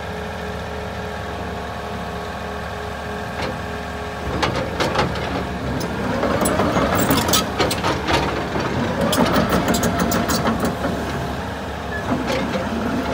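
Volvo EC380EL hydraulic excavator's diesel engine idling steadily. From about four seconds in it runs louder and rougher, with repeated sharp metallic clanks and squeaks as the machine starts to work.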